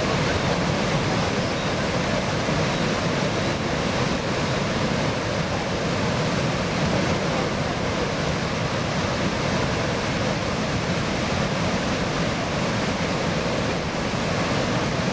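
Steady roar of Niagara Falls and the churning river below it: an even, unbroken rush of water noise.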